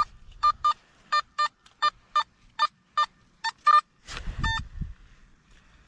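Nokta Simplex Ultra metal detector beeping as its coil is swept back and forth over a target in a freshly dug hole: a string of short, high beeps, mostly in quick pairs, signalling metal under the coil. About four seconds in comes a lower beep with a brief scuffing noise, then quiet.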